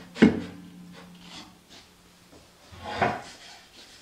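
Plywood top panels sliding and knocking on a plywood box: a sharp knock with a scrape just after the start, quieter sliding, then a second scraping knock about three seconds in.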